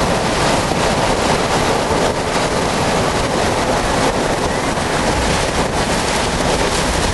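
Steady rush of wind buffeting the microphone, mixed with road and engine noise from a moving car, heard from inside the car.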